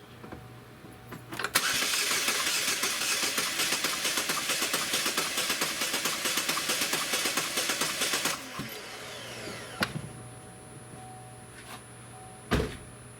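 Starter cranking the 2.4 L Ecotec four-cylinder engine for about seven seconds without it firing, with a compression gauge on cylinder 4, in a steady pulsing beat. The cranking beat reflects three cylinders making compression and one dead, which the mechanic takes to be a bad cylinder. It stops suddenly, followed by a falling whine, a click and a thump.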